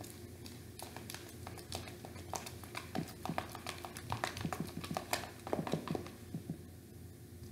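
Spoon clicking and scraping against a plastic bowl while stirring slime mixture, a quick irregular run of small taps that is busiest in the middle.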